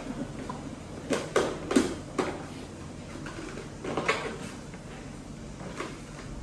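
Plastic clicks and knocks from a Ninja food processor's bowl and lid being handled, a few between one and two seconds in and another near four seconds in.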